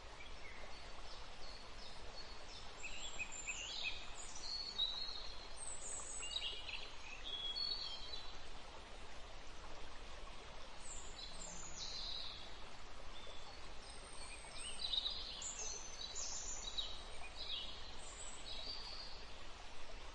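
Birds chirping in scattered bursts of short, high calls and quick falling notes, over a steady background hiss.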